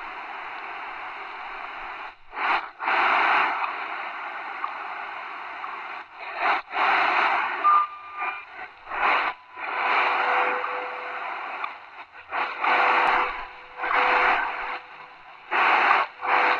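Shortwave hiss and static from the speaker of an XHDATA D-219 portable radio tuned to the WWVH time signal on 15 MHz. The hiss swells and drops out in uneven surges with short gaps. A faint steady tone from the station runs under it from about halfway through.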